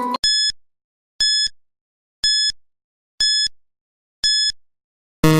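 Quiz countdown timer sound effect: five short, high electronic beeps, one a second, ticking off the count from five to one. Near the end a low buzzer sounds as the count runs out.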